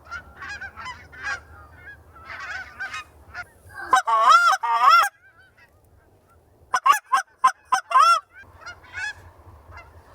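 Geese honking as a flock comes in over the decoys: many calls throughout, with loud, long wavering honks about four seconds in and a quick run of short honks about seven seconds in.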